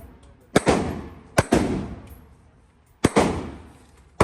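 Gunshots at a shooting range: three sharp shots, about a second, then under a second, then about a second and a half apart, with a fourth right at the end. Each crack is followed by a rolling echo that dies away over about a second.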